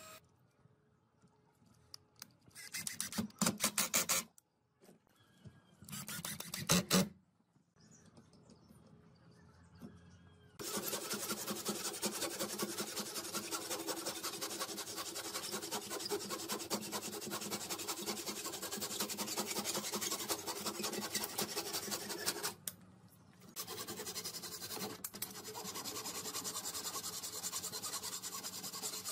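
Two short bursts of a cordless drill-driver near the start. Then a handsaw cutting through the ends of laminated wooden slats in rapid, steady strokes for most of the rest, with one brief pause about three quarters of the way through.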